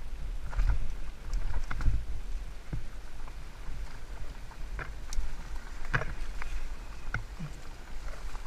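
Haibike Sduro FullFat Six electric fat-tyre mountain bike rolling down a rough singletrack, heard from a head-mounted camera. A steady low rumble of tyres and wind on the microphone runs throughout, broken by scattered sharp rattles and knocks as the bike goes over rocks and roots.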